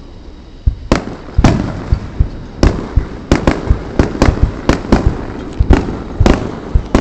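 Fireworks display: aerial shells bursting in a quick, irregular string of sharp bangs, about two a second, starting about a second in.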